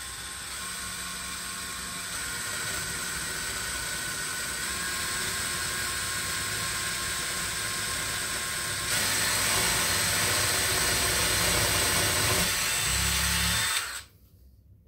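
Cordless drill boring a twist bit through a wooden board: a steady motor whine that gets louder about nine seconds in and stops suddenly near the end.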